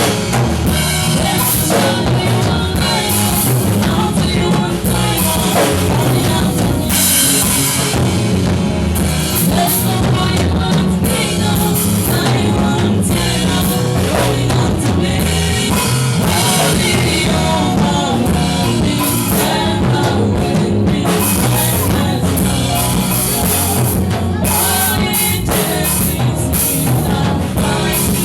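Rock music with a full drum kit and a steady beat, with what may be singing over it.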